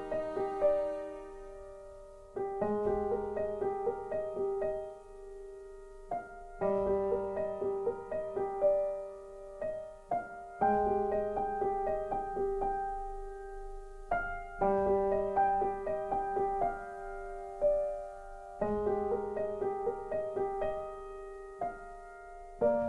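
Slow, calm background piano music, its phrases starting again about every four seconds, each with notes left ringing.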